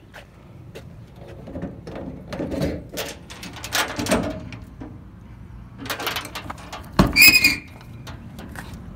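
Handling knocks and rustles against a steel service-truck utility body, then a loud metal clunk about seven seconds in, followed at once by a short high squeak, like a compartment door and latch being shut.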